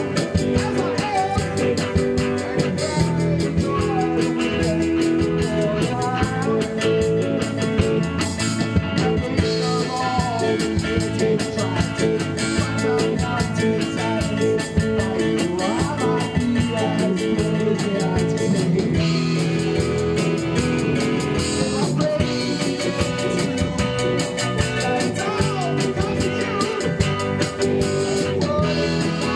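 Live rock band playing: two electric guitars, bass guitar and drum kit, with cymbals keeping a steady beat.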